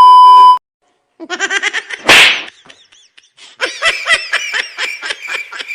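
A short, loud beep tone that cuts off half a second in, then a sharp slap-like burst about two seconds in, followed by a run of fast, repeated laughter.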